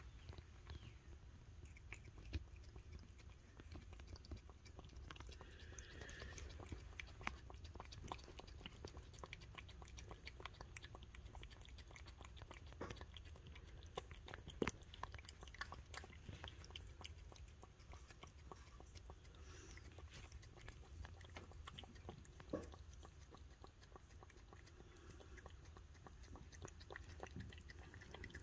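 A cat eating soft food from a plate close to the microphone: faint, irregular wet licking and chewing clicks, with a few sharper ticks.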